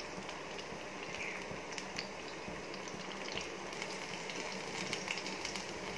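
Batter-coated snake gourd rings deep-frying in hot oil: a steady sizzle with scattered light crackles.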